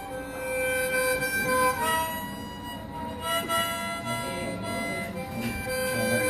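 Slow music of held, reedy chords that shift to new notes every second or two.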